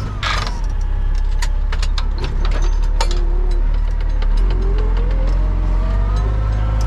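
Tractor engine running steadily while pulling a plough, with rattling and clicking from the machinery and a whine that rises in pitch about four and a half seconds in.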